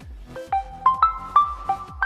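OnePlus 5T ringtone playing from the phone's loudspeaker: a quick electronic melody of short, bright notes stepping upward over a light beat.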